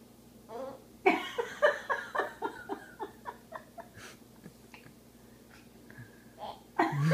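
A person's voice: a quick run of short breathy sounds, about four or five a second, starting about a second in and thinning out, with more voice near the end.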